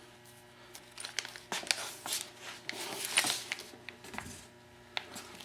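Paper packaging being handled: crinkling and rustling with a few light clicks.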